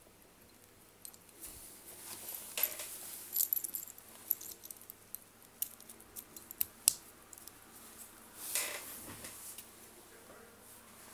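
A wristwatch and its packaging being handled: scattered light metallic clicks and small rattles, with a longer rustle about two and a half seconds in and another around eight and a half seconds.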